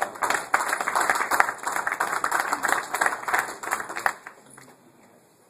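Audience applauding: dense, quick clapping from a roomful of people that stops about four seconds in.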